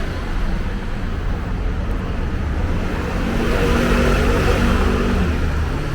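Street traffic noise: a steady hum of road vehicles with a low engine drone, a little stronger in the second half.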